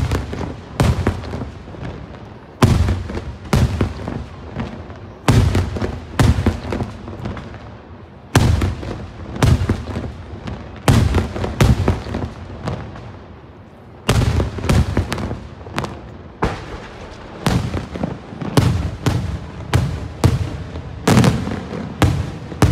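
Daytime fireworks: aerial shells bursting overhead in a long irregular series of loud bangs, each trailing off in an echo. After a short lull the bangs come faster, about two a second, over the last few seconds.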